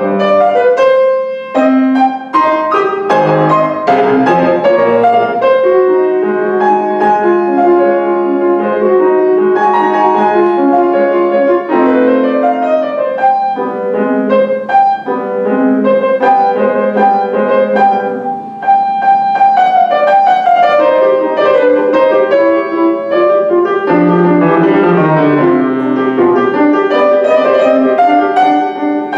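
Grand piano played solo: a fast passage of many notes and chords, with a falling line of notes about two-thirds of the way through.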